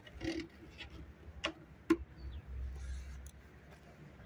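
Two sharp clicks about half a second apart, around a second and a half in, from a metal hive tool knocking against the wooden hive, followed by a low rumble.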